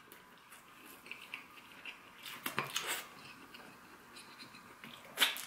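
Chewing sounds of a person eating a small cheeseburger slider: quiet, wet mouth clicks, with a few louder smacks about two and a half seconds in and again near the end.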